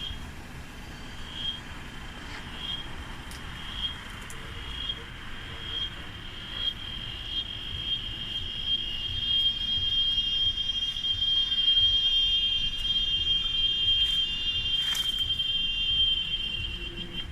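Cicada calling: separate high chirps about a second apart come faster and faster until they merge into a continuous shrill buzz, which swells louder and holds, then cuts off just before the end.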